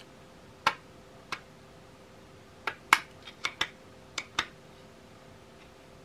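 Sharp plastic clicks from the Kärcher WV 2 window vac's suction nozzle as it is handled and taken apart, about nine in irregular groups, the loudest about three seconds in.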